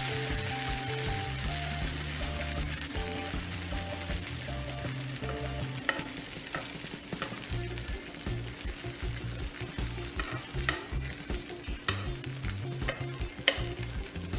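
Semolina batter sizzling on a hot oiled grill pan as a steel spoon spreads it out, the hiss easing slightly over time. From about halfway in, there are light clicks of the spoon against the pan.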